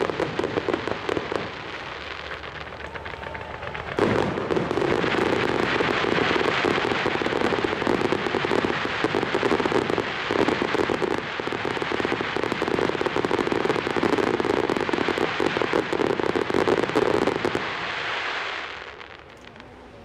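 Fireworks display: aerial shells bursting in a dense barrage of rapid pops and bangs. The barrage eases about two seconds in, surges again at about four seconds, and dies away near the end.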